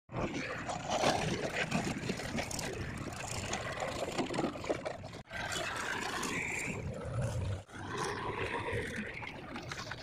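Diesel engines of a backhoe loader and farm tractors running, in three short clips joined with abrupt cuts about halfway through and again a little later.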